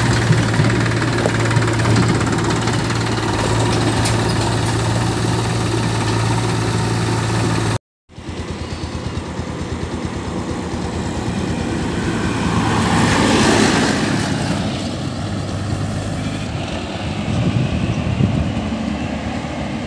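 Tractor diesel engines: one running steadily with an even low hum, then, after a short break about eight seconds in, another tractor's engine that grows louder and fades as it drives by.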